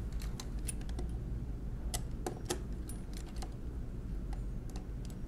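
Irregular light metal clicks and ticks as the key bars of a 1920s Monroe Model K mechanical calculator's keyboard are lifted by hand and slid onto their pins, over a low steady hum.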